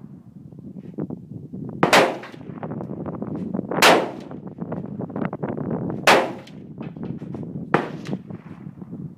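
Four sharp rifle shots, roughly two seconds apart, each followed by a short echo. Steady wind rumble on the microphone throughout.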